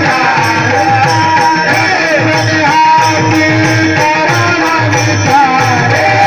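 Devotional kirtan music: a wavering melody line over a steady, evenly repeating hand-drum beat.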